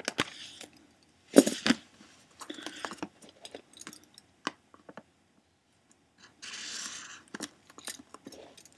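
Hands opening a sealed box of trading cards: crinkling and tearing of plastic wrap and cardboard, with scattered small clicks and scrapes. The loudest crackle comes about a second and a half in, and a longer rustle around seven seconds.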